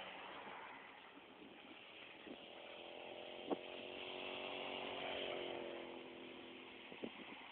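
Wind and rolling noise from riding a bicycle along an asphalt path. An engine's steady hum swells in and fades out over a few seconds, rising slightly in pitch and then falling as it goes by. There is a single sharp click about three and a half seconds in.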